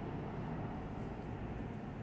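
Low, steady rumble of a subway train in the station tunnel, slowly fading as it moves away.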